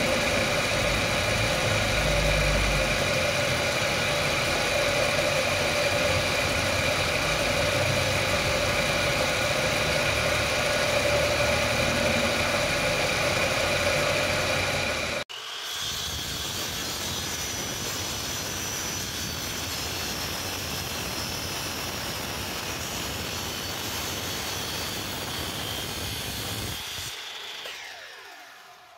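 Wood lathe motor running with steady tones while a turning tool works the spinning wood. About halfway through the sound cuts abruptly to a quieter, smoother running, and near the end a motor spins down, falling in pitch and fading.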